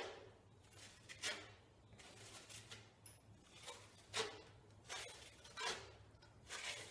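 Faint swipes of a flat drywall blade drawn through wet joint compound on the wall, roughly one stroke a second, knocking down the blobs into a knockdown texture.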